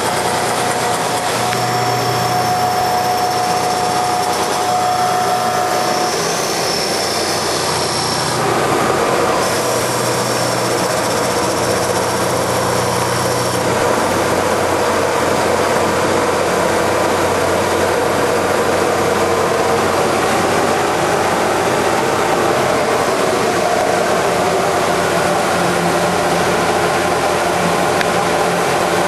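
Hydraulic automatic copy wood lathe running, a steady loud machine noise whose tones shift as it works, with a thin steady whine that stops about six seconds in.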